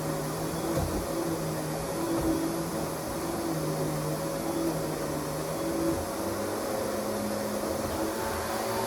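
Kenmore 400 Series canister vacuum cleaner running, a steady whooshing whir of its motor with low humming tones that shift in pitch about six seconds in.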